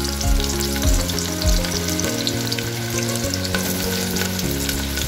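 Freshly added sliced onions sizzling and crackling in hot oil in an aluminium pressure cooker, with a few soft low knocks in the first second and a half.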